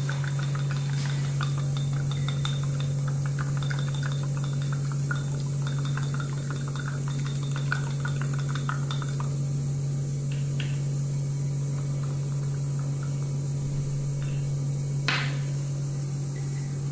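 A steady low electrical hum, with many small clinks and taps from a glass beaker and a pH electrode being handled over the first half, and one sharper knock about fifteen seconds in.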